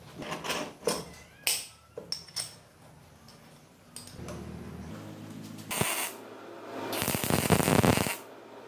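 Steel brackets and bolts clinking and knocking as they are handled on a metal bench, then a stick (arc) welder crackling as the parts are tack-welded: a short burst, then a louder one of about a second near the end.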